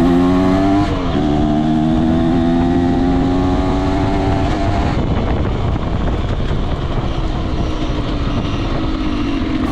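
Yamaha DT125R's single-cylinder two-stroke engine running: a steady engine note that dips briefly about a second in, then turns rougher and noisier about halfway through.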